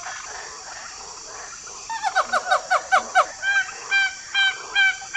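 Bird calling over a steady high, buzzing background: first a quick run of short calls that slide downward, then separate honking calls about two a second.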